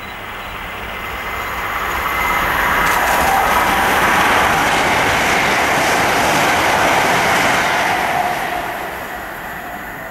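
Hitachi Class 800 (IEP) train, unit 800001, passing through a station. The noise of the train grows over the first couple of seconds, is loudest through the middle as the carriages go by, and eases off near the end.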